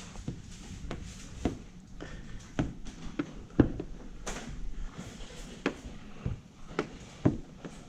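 Irregular light taps and clicks, several of them sharp, over a low steady hum: handling noise from working on the hood.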